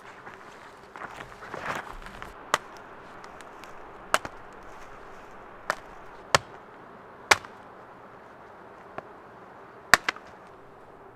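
Dry dead branches being broken up for firewood: about eight sharp wooden cracks at irregular intervals, with a close pair near the end, over rustling of brush underfoot.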